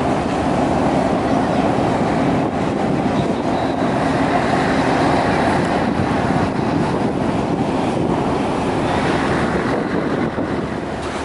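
Large passenger ferry's engines and machinery running, a steady drone with a couple of steady hum tones in it.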